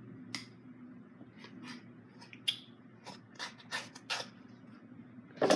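Small pieces of a kit coin bank being handled and fitted: a string of short, uneven clicks and scrapes as the plastic window pane is worked into place, with a louder rustle near the end.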